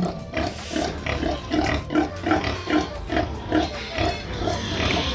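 Rhythmic grunting of a nursing sow, steady at about three grunts a second, while weaner piglets suckle at her teats.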